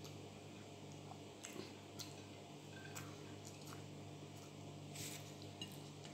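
Faint chewing of a mouthful of chicken biryani rice, with a few soft clicks, over a steady low hum.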